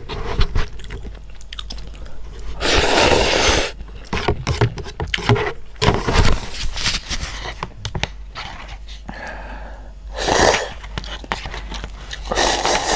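Close-miked eating of cup noodles: chewing and slurping, with chopsticks clicking against the paper cup. Three longer slurps stand out, about three seconds in, about ten seconds in and near the end.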